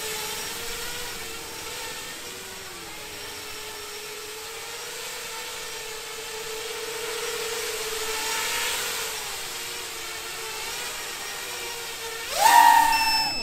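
A 7-inch FPV quadcopter, its brushless motors tilted on angled mounts, buzzing as it hovers and flies low, the pitch wavering up and down with the throttle. About a second before the end the motors rev up sharply to a much louder, higher whine.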